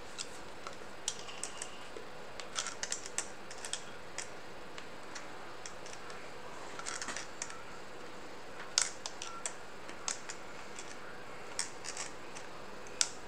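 Pliers clicking and scraping against a metal threaded rod and its locking nut as the nut is tightened on. Irregular sharp metallic clicks, one with a brief ring about a second in, the loudest about nine seconds in and just before the end.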